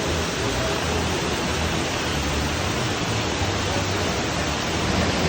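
Waterfall pouring into a pond: a steady, even rush of falling water.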